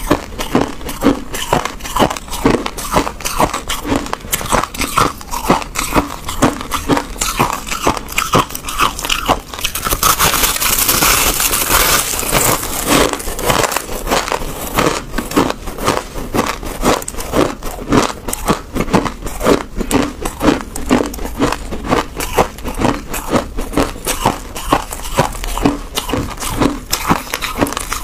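Crushed ice crunching as it is chewed and as handfuls are packed into a ball: a dense run of crisp, rapid crunches, with a louder, hissier stretch about ten to thirteen seconds in.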